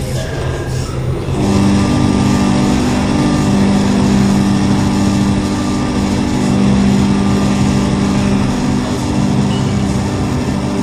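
Modular synthesizer drone in a live generative electronic set: a dense, rumbling low noise bed under a steady low tone, with two held higher tones coming in about a second and a half in and sustaining.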